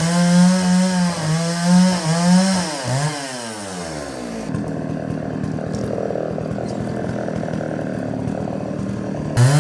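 Two-stroke chainsaw cutting wood, its engine pitch dipping and recovering under load. About three seconds in the revs fall away and it runs at a low, even idle for about five seconds, then revs up loudly again near the end.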